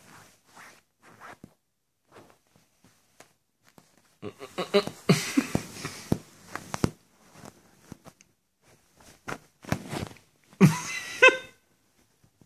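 Duvet fabric rustling and rubbing in bursts, densest from about four to seven seconds in and again about ten seconds in. Near the end comes a short sound with a clear pitch.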